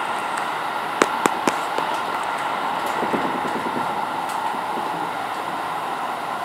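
Tokyo Metro Tōzai Line subway train running, a steady rushing noise heard from inside the car, with three sharp clicks in quick succession about a second in.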